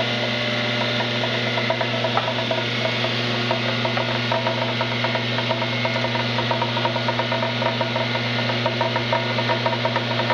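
Electric tile-cutting power tool running steadily, cutting an inside notch into a tile.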